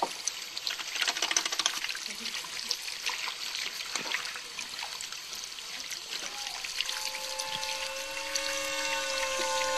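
Tap water running over hands being washed under a faucet, with irregular splashing as the hands rub together. About seven seconds in, a few steady tones fade in and grow louder.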